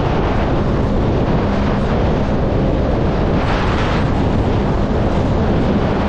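Wind buffeting the microphone over the steady drone of a motorboat running at speed and the rush of water against its hull, with a surge of hiss about three and a half seconds in.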